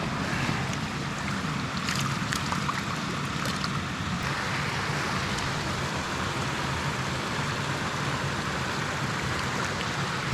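Trout stream water rushing steadily over rocks.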